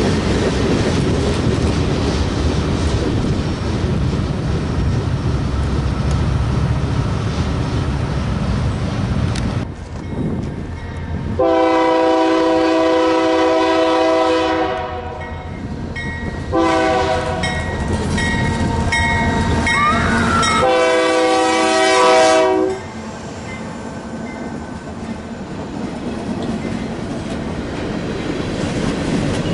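Freight cars rumbling and clattering past on the rails; then a diesel freight locomotive approaching sounds its multi-chime air horn in three blasts, two long and a shorter one, before covered hopper cars roll past with steady wheel clatter.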